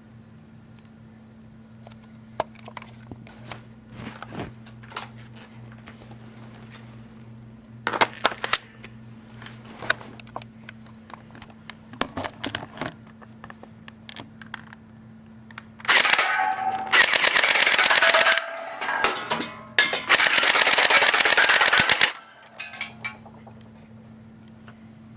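Double Eagle M83 airsoft gun shooting 6 mm BBs at cans: scattered single sharp clicks for the first half, then two full-auto bursts of about two seconds each, a couple of seconds apart, followed by a few more clicks.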